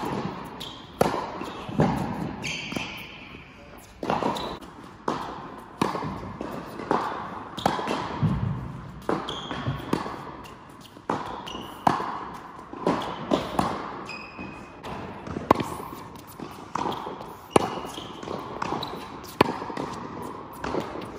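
Tennis balls struck by rackets and bouncing on an indoor hard court: sharp hits about once a second, echoing in the hall, with a few short high squeaks from shoes on the court.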